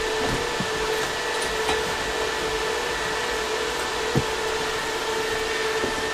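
Steady whir of running fans with a constant hum, with a couple of soft knocks from a cardboard box being opened and handled, the clearest about four seconds in.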